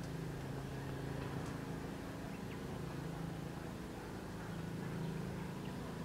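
A steady low mechanical hum, as from a running machine, with a few faint clicks.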